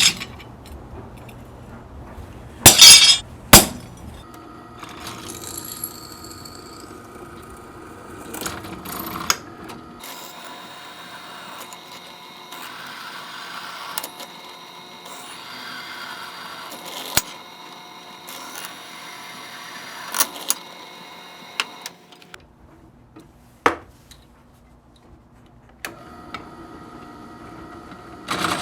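Two sharp metallic hammer strikes on a center punch against a steel knife blank, then a drill running steadily as it bores the punched holes, with a few knocks and clicks, stopping about 22 s in and starting again near the end.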